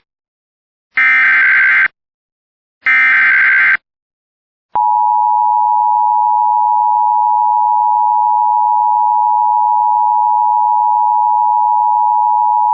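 Emergency Alert System SAME header data bursts: two harsh, warbling digital bursts about a second each and a second apart. About a second after the second burst, a steady attention tone near 1 kHz begins and holds for about eight seconds, the signal that an emergency warning message follows.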